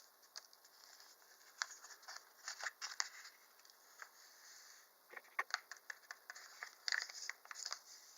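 Small packet of Sea-Monkey water purifier being opened and emptied into the plastic tank: faint crinkling and light clicks in scattered clusters.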